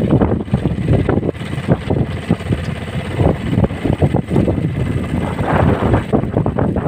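Strong wind buffeting the microphone in a low, fluttering rumble, over the wash of a choppy sea around a small outrigger boat.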